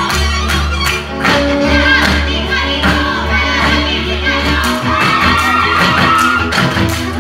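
Live folk band playing Szilágyság dance music, a fiddle carrying the tune over a double bass, with many sharp slaps and stamps from the male dancers' hands and boots cutting through it.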